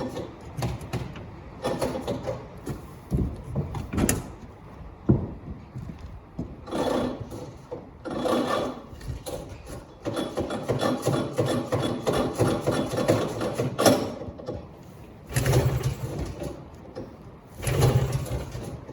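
Repeated pulls on the recoil starter of a Sachs SA280 single-cylinder snowmobile engine, the rope rasping out in separate strokes and the engine turning over without firing.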